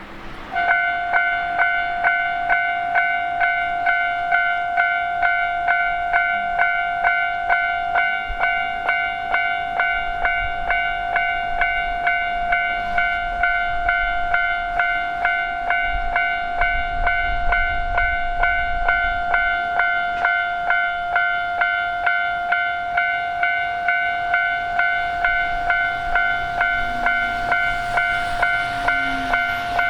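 Japanese level-crossing warning bell ringing its steady two-tone "kan-kan" at about two strikes a second; it starts suddenly about half a second in. A low rumble rises briefly partway through.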